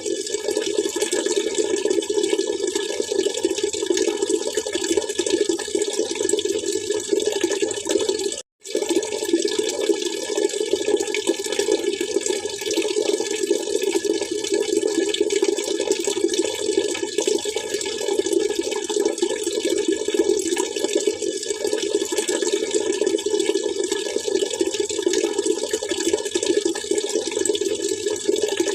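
Water splashing and trickling steadily, with one brief break in the sound about eight and a half seconds in.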